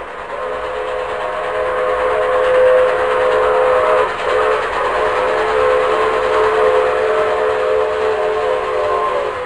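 Train horn sounding two long blasts with a short break between them, about four seconds in, over the running noise of a moving train.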